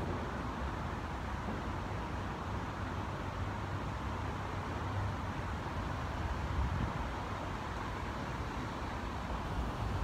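Wind buffeting the microphone: a low rumble that rises and falls, over an even hiss.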